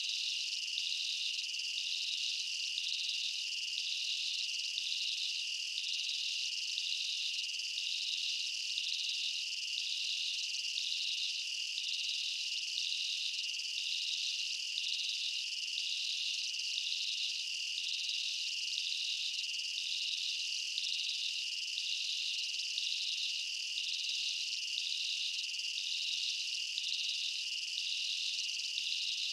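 Steady chorus of insects: a continuous high-pitched trill with a regular pulsing layered on top.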